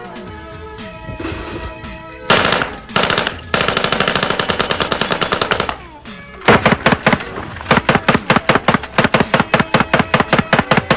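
Uzi submachine gun firing on full automatic in several bursts, the longest about two seconds, bullets striking sheet-metal car doors. Background music runs underneath, alone for the first two seconds.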